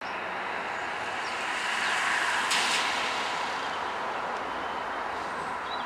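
Distant Irish Rail 201 class diesel locomotive (EMD JT42HCW) approaching with a freight train, heard as a steady noise that swells slightly. A brief louder burst of noise comes about two and a half seconds in.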